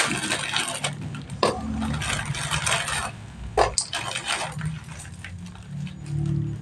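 Plastic instant-noodle packet crinkling as the dry noodle block inside is crushed and broken up by hand, with a few sharp cracks; it quietens after about three seconds.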